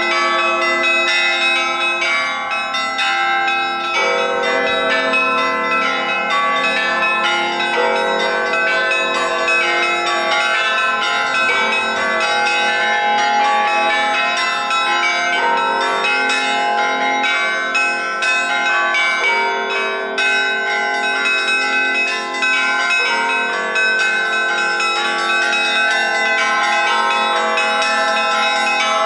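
Russian church bells pealing: many bells struck in quick succession, their ringing overlapping without a break. The combination of bells shifts every few seconds.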